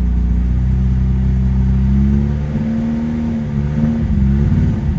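Ford Escort XR3i's four-cylinder engine idling with a slight misfire on warm-up. About two seconds in the steady note breaks up and turns uneven.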